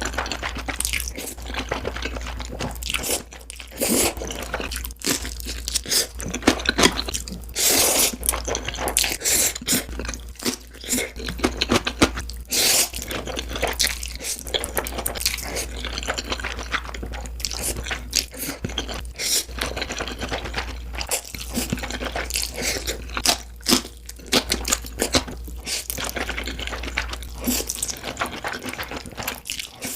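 Close-miked eating of Korean black bean noodles (jjajangmyeon): a dense, uneven run of bites, chewing and crunches. Underneath is a low steady hum that drops out near the end.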